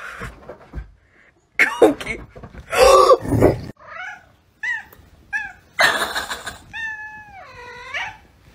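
A domestic cat giving four short, clipped bark-like calls in quick succession, then one long meow that drops in pitch near its end. A louder, rougher stretch of sound comes first, in the opening seconds.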